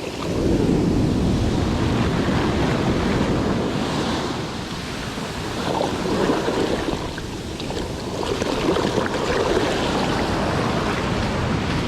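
Ocean surf washing onto the shore, with wind buffeting the microphone. The rush is strongest at the start, eases off in the middle and swells again about two-thirds through.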